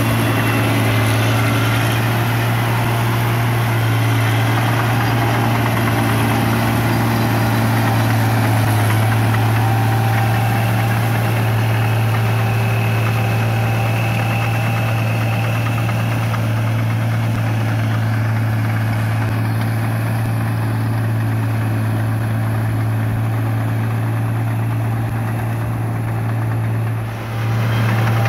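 Ford 6610 tractor's four-cylinder diesel engine running steadily under load as it drives a rotovator through the mud of a flooded paddy field, with a brief dip near the end.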